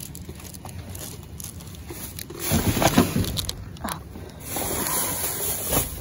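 Handling noise of spiral-bound planners being passed over, then rummaging through plastic-bagged trash and cardboard: rustling and scraping, loudest about two and a half seconds in.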